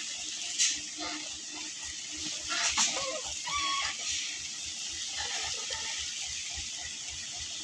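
A chicken clucking a few short calls about three seconds in, over a steady hiss of outdoor noise.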